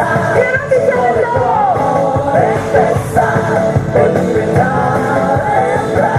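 Background music: a song with a sung melody over a full band accompaniment.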